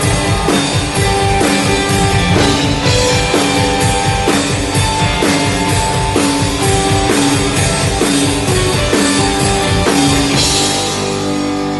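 Live rock band playing: electric guitars over a drum kit keeping a steady beat, with a cymbal wash about ten seconds in.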